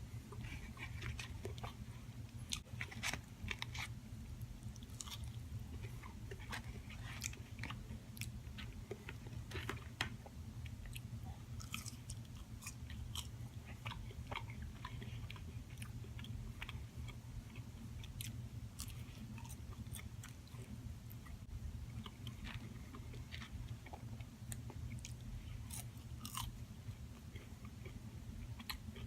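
Close-up chewing and biting of fast food, with frequent short crunchy clicks, over a steady low hum.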